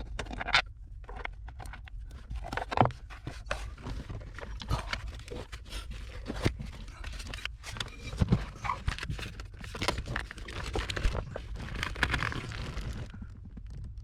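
Irregular light knocks, taps and scrapes of handling and moving about inside a car, over a low steady rumble.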